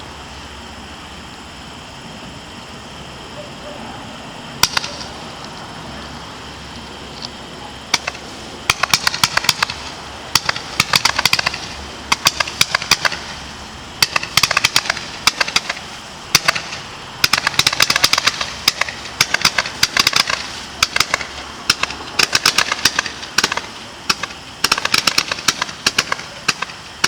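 Firework shotter cake firing. A steady background rumble comes first, then a sharp bang about four and a half seconds in. From about eight seconds on, clusters of rapid crackling follow one after another, every second or two.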